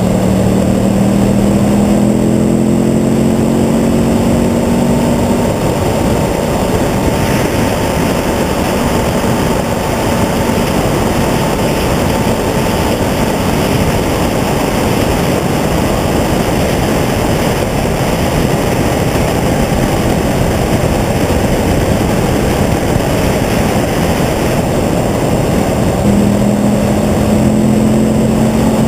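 Motorcycle riding at cruising speed: the engine runs steadily under heavy wind rush on the microphone. The engine's note comes through most plainly at the start and again near the end, rising slightly in pitch.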